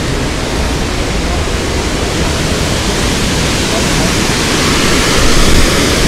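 Steady rushing of a tall, multi-tiered waterfall, growing slightly louder near the end.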